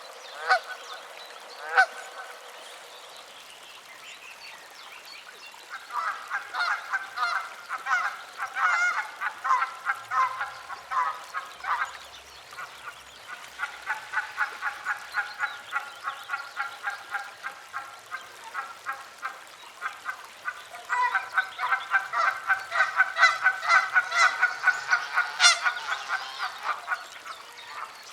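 Geese honking: a couple of lone honks at first, then three long bouts of rapid, overlapping honking from several birds.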